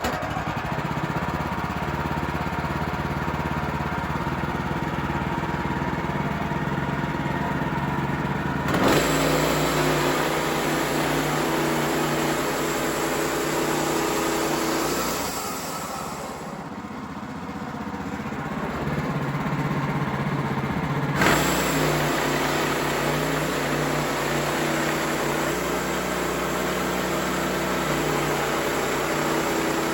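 Gas-engine sawmill running steadily under load while cutting a red cedar log. The sound shifts abruptly about nine seconds in, the high end drops away for several seconds, and it returns sharply about twenty-one seconds in.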